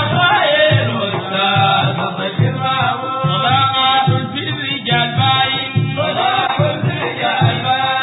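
Sudanese Sufi madeeh: men singing a praise song for the Prophet, one melodic line with voices joining, over large hand-held frame drums (tar) beating a steady rhythm.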